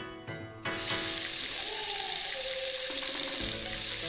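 Water running steadily from a toy kitchen sink's tap, starting about a second in, over cucumbers being rinsed under it. Light background music plays underneath.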